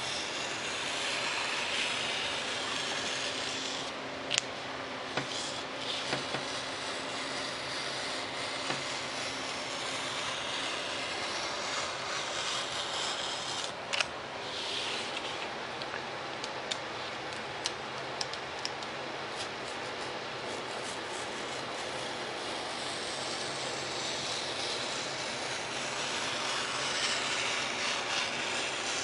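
Hobby knife scoring foam board along the wing's airfoil lines, cutting only about halfway through: a steady scratchy rubbing in long strokes, with a few sharp clicks.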